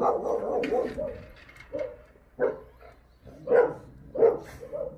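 Jindo dogs barking: a string of short barks, about half a dozen spread unevenly, with a longer run of calls in the first second.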